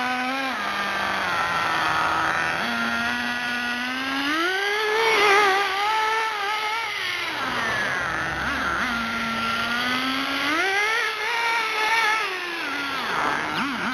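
Ported .18 nitro glow engine of an RC buggy running. Its pitch climbs and falls twice as the throttle is opened, about a third of the way in and again later, with lower, steadier running in between and an uneven, wavering note near the end.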